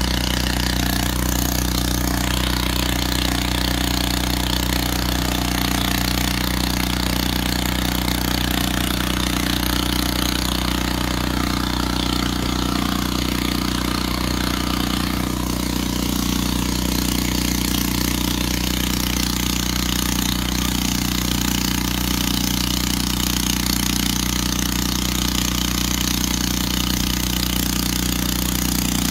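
An engine running steadily at an unchanging speed.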